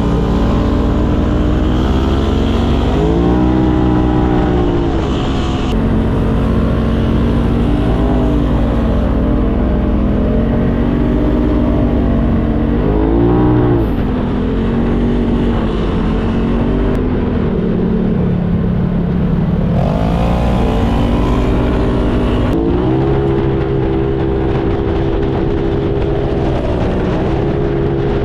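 Polaris RZR side-by-side engine running under way, its revs rising and falling several times as it accelerates and eases off, then climbing and holding higher about two-thirds of the way through, over a steady low rumble of driving.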